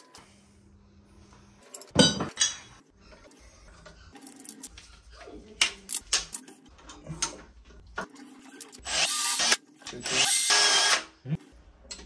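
Hand tools working copper pipe: a sharp clack about two seconds in, scattered clicks and knocks, then two loud rasping bursts of about a second each near the end.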